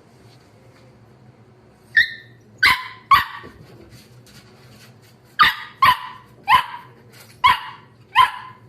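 Wire-haired dachshund puppy barking: eight short, high-pitched yaps, a group of three and then, after a pause, a run of five.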